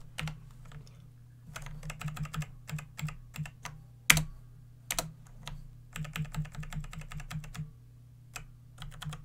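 Computer keyboard typing in short runs of keystrokes, with a few louder single strikes about four and five seconds in. A low steady hum sits underneath.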